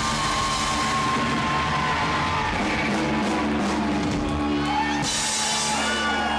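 Live rock band playing loud music, with a drum kit and cymbals.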